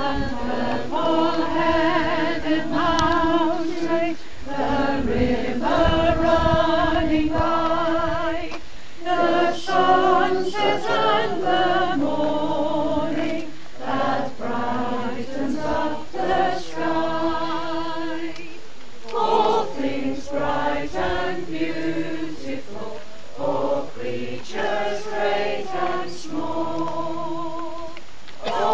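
A small outdoor congregation of mixed voices singing a hymn together in sustained lines, with brief pauses between phrases.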